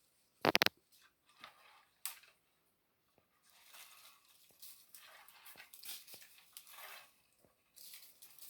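Dry twigs and leaves rustling and crackling as they are handled, with one short, loud crackle about half a second in and a longer stretch of rustling in the middle.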